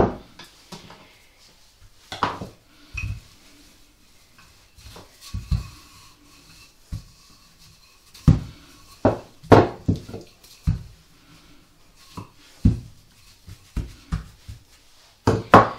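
Irregular knocks and clatters, a dozen or so spread unevenly, as a wooden rolling pin and a knife are handled, rolled and set down on the worktop while working a sheet of puff pastry.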